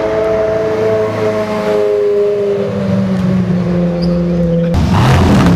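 Ferrari 360 Spider's V8 running at low revs as the car drives off, a steady engine note. About a second before the end it cuts to a louder, deeper, pulsing rumble from a Mercedes-AMG C63 S V8.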